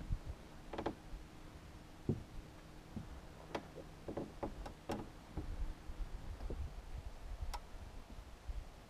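Scattered faint ticks and light taps, a few at a time, over a low rumble, with a faint steady hum that fades out about six seconds in.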